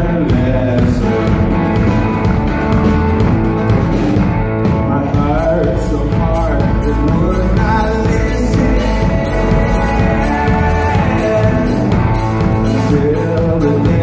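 Live band music: a man singing lead over strummed acoustic guitar, backed by upright bass and electric guitar. A steady percussive beat comes in about five seconds in.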